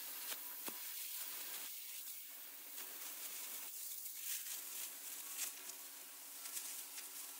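Hypertherm Powermax45 XP plasma cutter cutting through the 3/8-inch steel wall of a propane tank: a steady hiss with scattered sharp crackles and pops.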